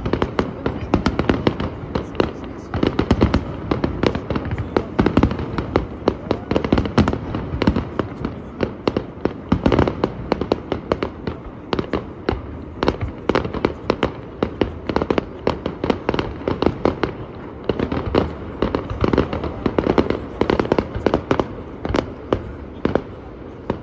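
Fireworks display going off: a dense, unbroken run of sharp bangs and crackles, several a second.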